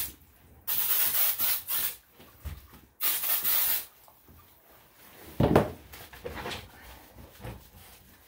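Two spells of water hissing from a hand-held sprayer as a wet Yorkshire terrier is rinsed in a bathtub, each about a second long and cut off sharply. About five and a half seconds in comes a short, loud thump, followed by quieter scattered knocks.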